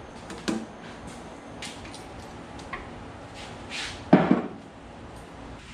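A few knocks and clatters of things being handled and set down. The loudest is a double knock about four seconds in, with soft rustling between them.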